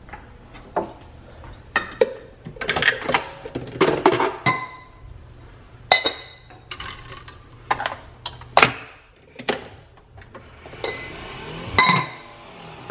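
Glassware being handled on shelves and a granite countertop: a run of sharp clinks and knocks, a few of them ringing briefly like struck glass.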